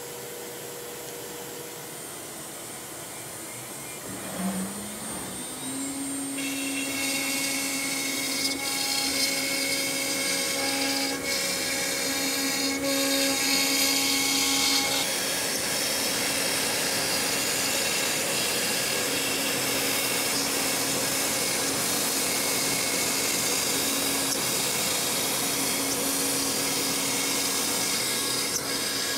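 CNC router spindle spinning up with a rising whine a few seconds in, then running at a steady pitch of about 14,000 rpm while a 1/8-inch compression bit cuts box parts out of plywood, with a steady rushing cutting noise over a faint background hiss.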